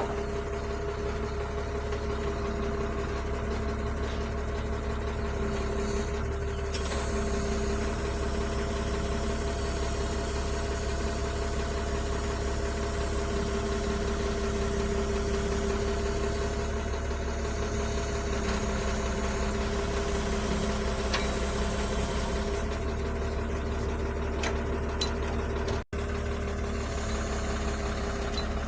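Heavy vehicle's diesel engine idling steadily, with a momentary dropout near the end.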